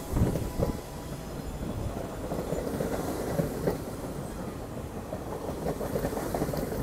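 R68A New York City subway train rolling slowly into the station, with low rumbling and irregular clacks of the wheels over the rail joints and a faint thin squeal from the wheels.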